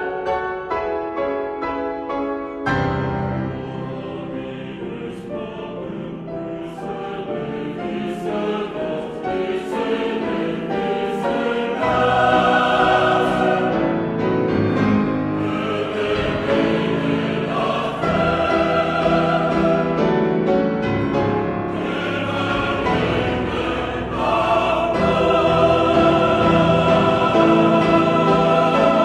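Mixed chorus singing with piano accompaniment. Quick repeated piano chords lead in, then the choir fills out and swells louder about twelve seconds in and again near the end.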